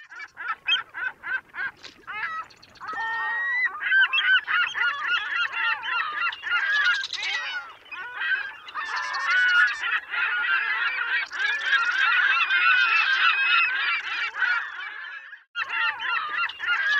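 A large flock of birds honking and calling over one another in a dense, continuous chorus; it stops for a moment near the end and starts again.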